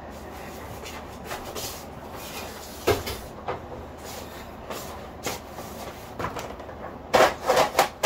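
Scattered light knocks and clacks over a steady low hum, then near the end a quick run of rattling from the roller blind's pull chain being worked.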